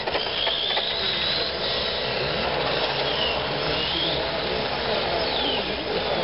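Stock-class Jabber RC motorcycle's motor whining at lap pace, its pitch rising and falling several times as the bike speeds up and slows for the corners.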